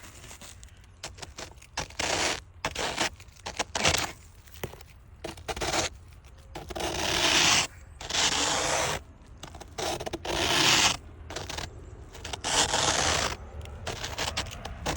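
Thick ice being scraped in a run of rough strokes, short ones at first and then three longer, louder scrapes of about a second each in the second half.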